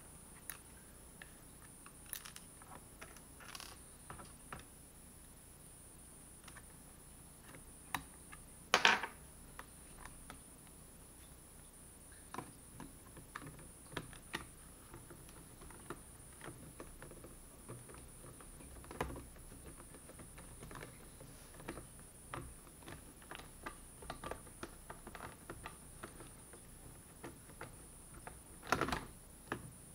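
Faint, scattered clicks and taps of a small screwdriver and tiny screws being fitted into a laptop's casing, with two louder knocks, one about nine seconds in and one near the end.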